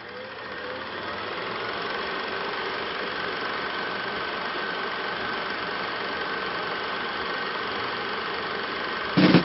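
Steady mechanical running noise that fades in over the first two seconds and then holds even, with music starting just before the end.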